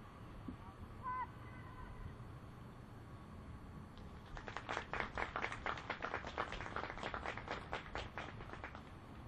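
Scattered hand clapping from a small number of spectators. It starts about four seconds in and lasts about four and a half seconds.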